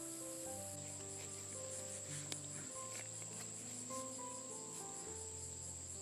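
Steady high-pitched insect trilling, with a faster pulsing layer starting about a second in, over soft background music of held notes. A single sharp click comes about two seconds in.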